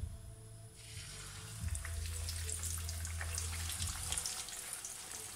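A thin, crumb-coated chicken cutlet sizzling and crackling in hot oil in a frying pan. The sizzle starts about a second in, as the cutlet goes into the oil, and keeps up steadily.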